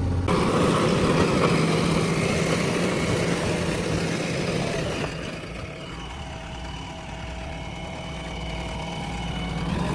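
JCB 3DX backhoe loader's diesel engine running, loud and rough for the first few seconds, then easing to a quieter, steadier note about halfway through.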